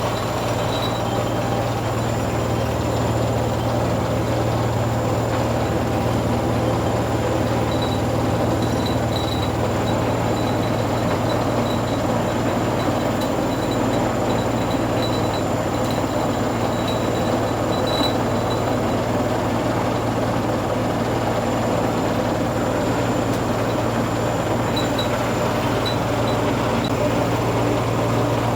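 Zanussi ZE 16 front-loading washing machine in its 1600 rpm final spin with a badly unbalanced load: a steady, loud low motor hum under the rushing noise of the spinning drum.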